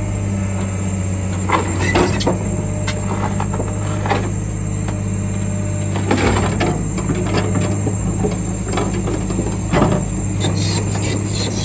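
A heavy earthmoving machine's engine running steadily while it handles a marble block, with scattered metallic knocks and short squeals from its arm and bucket, the loudest about 6 and 10 seconds in.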